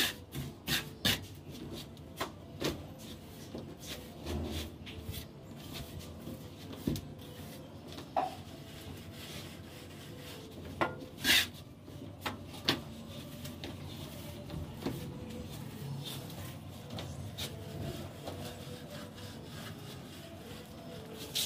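Hand trowel scraping and smoothing cement plaster on a concrete ceiling, with scattered sharp clicks and knocks of the trowel. The loudest knock comes about eleven seconds in.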